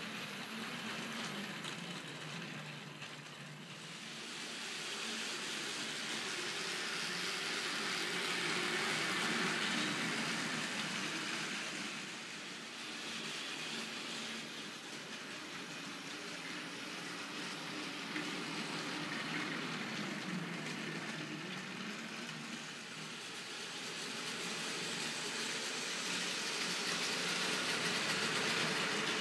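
Battery-powered Plarail toy trains whirring and rattling along plastic track, the small motors and wheels making a steady buzzing clatter that grows louder and fades several times as trains pass close by.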